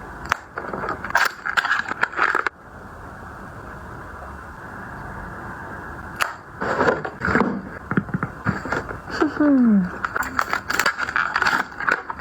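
Packaging being handled and opened up close: irregular crinkling, scraping and tapping in two bursts, with a brief falling squeak about nine and a half seconds in.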